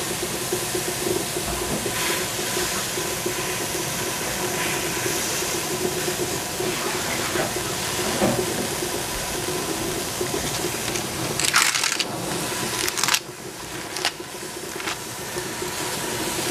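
Leafy greens cooking in a stainless steel pot over a gas burner, a steady hiss of steam and sizzling. A few short, louder rustles and clatters come about three-quarters of the way through.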